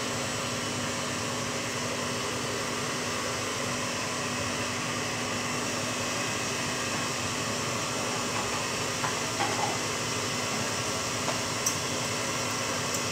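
KitchenAid stand mixer running steadily, whisking egg whites for macarons, a constant whirring hum. A few light clinks come near the end, as a wire whisk goes into a metal saucepan.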